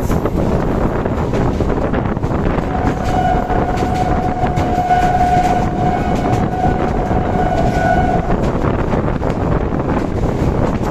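Train running at speed, a steady rumble and rush of noise, with a train horn sounding one long steady note from about three seconds in for about five seconds.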